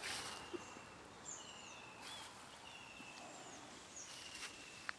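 Birds calling faintly over steady outdoor background noise: a series of short, thin whistled notes, some sliding down in pitch, repeating every second or so.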